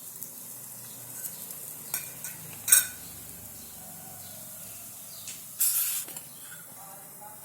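Thalipeeth dough on a hot nonstick tawa sizzling steadily and softly as it starts to cook. A few brief sharp sounds break in, the loudest about two and a half seconds in and a longer one near six seconds.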